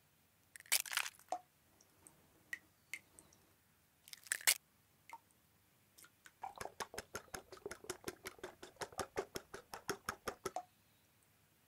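Eggs cracked into a glass bowl, two short crackling bursts a few seconds apart, then the eggs beaten with a silicone spatula, a quick steady run of strokes against the glass at about six a second that stops near the end.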